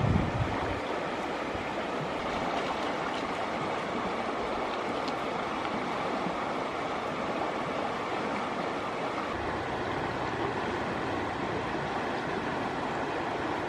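Steady rush of flowing river water, with a brief dull thump at the very start.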